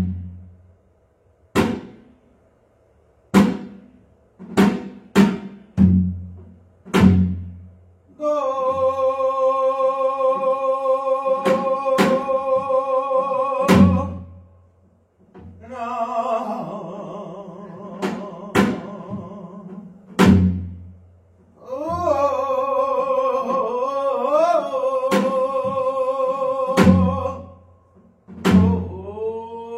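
Korean traditional instrumental music: a drum struck alone in slow, uneven strokes, then a sustained melody of long wavering notes entering about eight seconds in, in three phrases over the continuing drum strokes.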